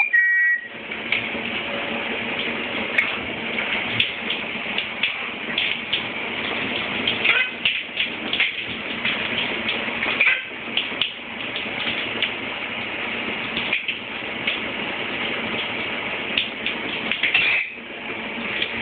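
Shower water spraying steadily, with a Quaker parrot's short chirps and calls over it at scattered moments. A brief whistle at the very start.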